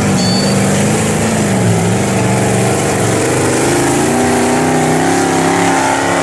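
Vehicle engine running loudly, its pitch climbing as it revs up about halfway through.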